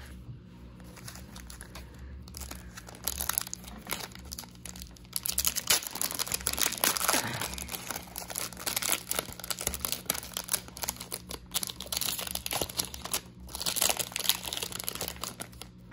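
Foil trading-card pack wrapper crinkling and rustling as it is torn open and handled, a dense crackle that gets busier about three seconds in.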